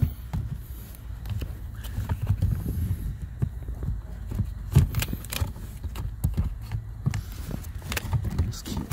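Irregular knocks and clicks of a plastic HVAC blower motor being pushed and shifted against its plastic housing while it is lined up into place, over a low rumble of handling noise on the phone's microphone.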